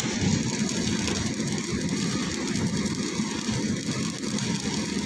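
Stick-welding arc from a 3 mm 6013 electrode on a galvanized iron pipe, crackling and sizzling steadily without a break.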